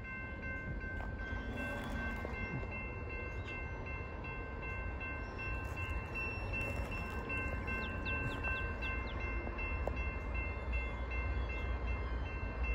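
Railroad grade-crossing bell ringing steadily as the crossing signals warn of an approaching train, over a constant low rumble.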